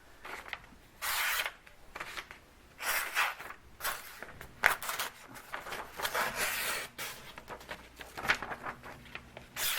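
The 440C steel blade of a Ganzo G720-O folding knife being drawn through material in several short, scraping slicing strokes, with a couple of sharp clicks between them. This is a sharpness test of an edge that is only fair and, in the owner's view, could use some stropping.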